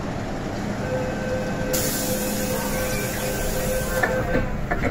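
MTR M-train doors closing at a station platform: a steady warning tone sounds for about three seconds over a hiss, then the doors and platform screen doors knock shut near the end.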